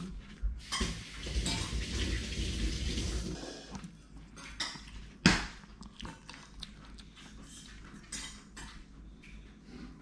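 Maltese dogs' claws clicking and scrabbling on a hard tiled floor as they move and jump up, in a dense run in the first few seconds, then scattered clicks with one sharp, loud knock about five seconds in.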